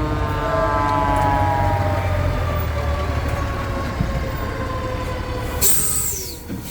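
Fire pumper truck's siren winding down, its pitch sliding lower over the first couple of seconds, over the steady low rumble of the truck's engine. Near the end comes a sudden short hiss.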